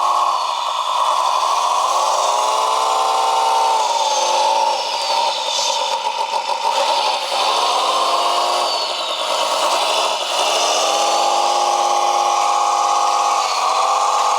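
Electric motors and gears of a JDM-98 RC bulldozer whining. The pitch sags and climbs back several times as the throttle is eased and reapplied.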